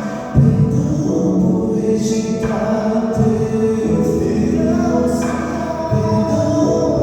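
Music with a choir of voices singing held notes over an accompaniment.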